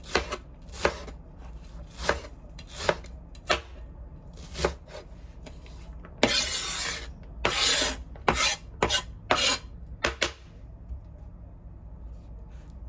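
A knife chopping on a cutting board, in separate, evenly spaced strokes. Two longer rasping noises come in the middle, then a quicker run of chops, and the chopping stops about two-thirds of the way through.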